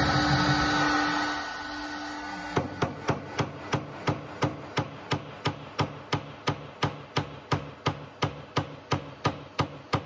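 Electric heat gun blowing with a steady hum. From about two and a half seconds in, a quick regular run of light hammer taps, about three a second, on a glued wooden block, trying to knock it loose while the heat softens the glue.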